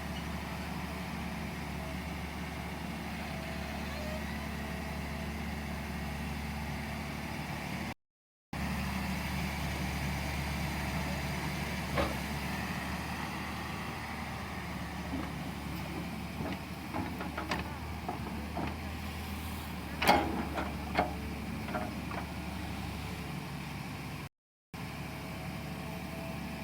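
Tata Hitachi 200-class excavator's diesel engine running steadily while digging. Sharp metallic clanks and knocks come from the bucket and arm working, about twelve seconds in and then a cluster later on, the loudest near the end.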